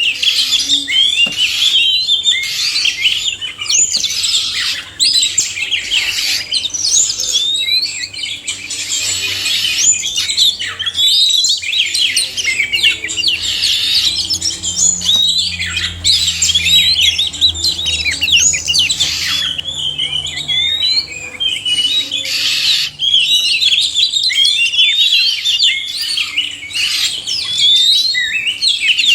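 A chorus of male and female Oriental magpie-robins (kacer) singing and calling at once: a dense, unbroken stream of fast whistled notes and chirps, full of quick rising and falling slurs.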